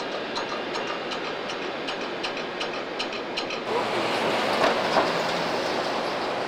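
A steady hiss with faint ticks about three times a second. About four seconds in, it gives way to louder city street traffic noise from passing cars and taxis, with a few knocks.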